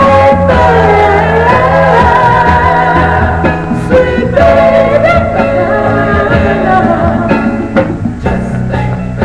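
Sweet soul vocal-group 45 rpm single playing on a turntable: singing over a band.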